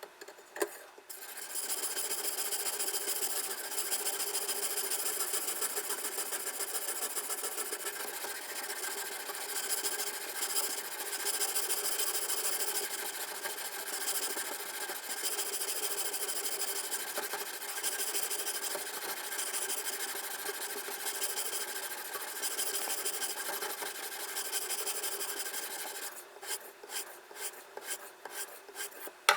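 Diamond sharpening stone on a fixed-angle sharpener stroked rapidly along a Victorinox knife blade's edge, a continuous scraping rasp that starts about a second in. Near the end it breaks into separate short strokes.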